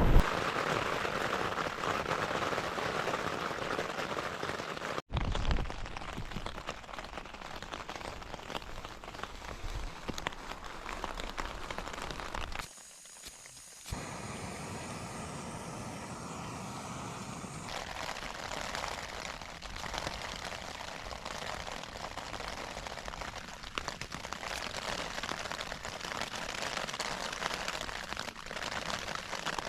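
Rain pattering on a tent's flysheet, heard from inside the tent in calm air: a steady, even patter that breaks off briefly twice.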